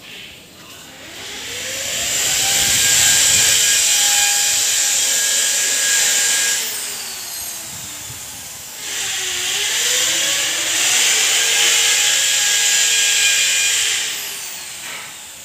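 Electric power tool motor running in two long bursts of about five seconds each, its whine rising as it spins up and falling as it winds down.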